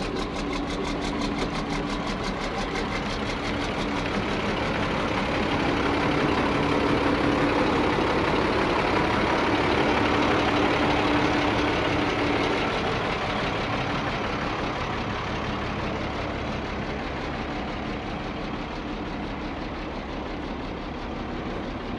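1990 International 4700 box truck's diesel engine idling steadily. It grows louder for several seconds midway, then eases off.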